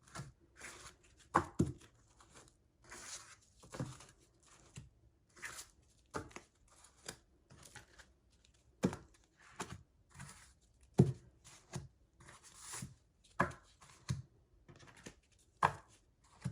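Paper wrappers rustled and torn off small stacks of bookmarks by hand, among irregular sharp taps and knocks.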